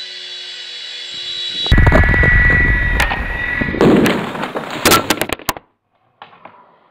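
Small remote-control helicopter's motor whining steadily, then, about two seconds in, a loud crash: rotor blades clattering and striking with many sharp knocks. The sound cuts off abruptly about five and a half seconds in.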